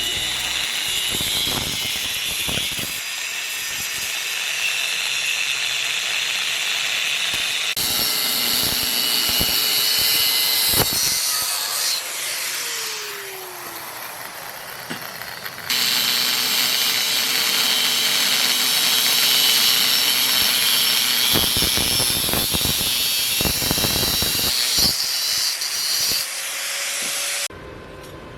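Power tools working on metal: a steady, loud, high-pitched hissing and grinding, made up of several clips that start and stop abruptly.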